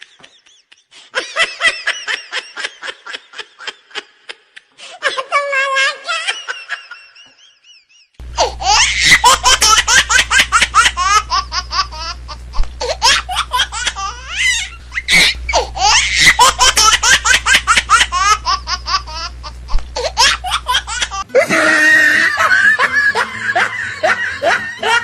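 People laughing hard in rapid repeated bursts. The sound changes abruptly about 8 seconds in and again about 21 seconds in, with a low steady hum under the laughter in between.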